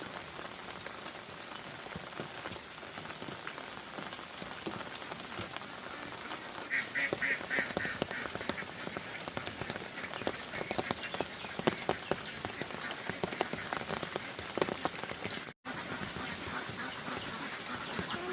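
Ducks quacking over a steady rushing hiss: a quick run of quacks about seven seconds in, then scattered clicks and knocks over the next several seconds.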